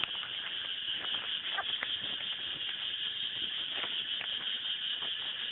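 Crickets chirring at dusk: a steady, high-pitched chorus, with a few faint knocks over it.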